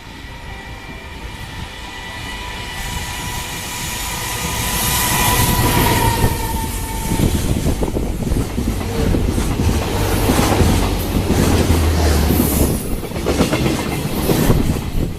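A container freight train hauled by a JR Freight EF210 electric locomotive approaches and passes at speed. Its whine grows louder and drops in pitch about six to seven seconds in as the locomotive goes by. A rapid clickety-clack of wagon wheels over the rail joints follows, with a heavy rumble.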